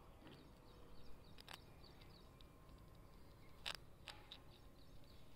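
Near silence: faint birds chirping, and a few sharp crunching clicks as a palm squirrel nibbles a piece of dry rusk.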